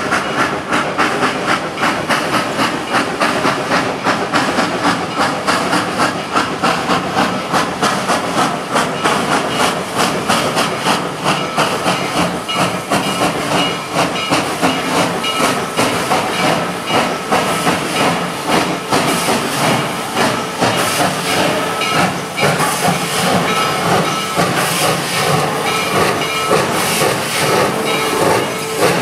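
2-8-0 Consolidation steam locomotive working slowly toward the listener: a steady run of exhaust chuffs over hissing steam.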